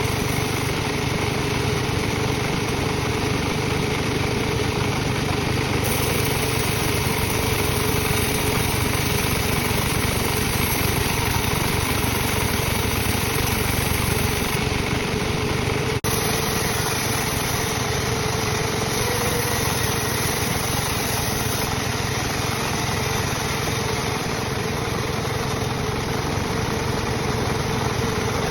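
Sawmill saw machinery running steadily while teak is cut into rafter stock, with a brief break about halfway through.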